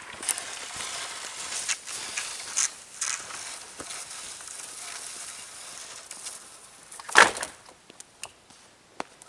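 Deep snow crunching underfoot and dry branches rustling and scraping as a person and a dog move around a pile of cut wood. One loud, sharp crunch comes a little over two-thirds of the way in, followed by a few small snaps.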